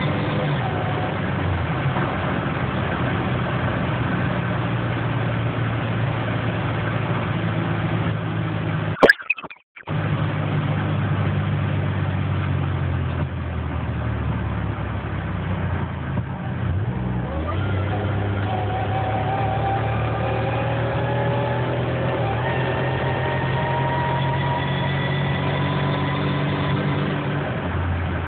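Buick Regal GS's supercharged 3.8-litre 3800 V6 engine running steadily, which the owner suspects has a slight misfire. The sound cuts out for about a second roughly a third of the way in, and in the second half the pitch climbs slowly as the engine picks up speed.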